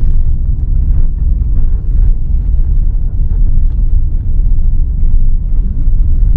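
Steady low rumble of a vehicle driving, engine and road noise heard from inside the cab.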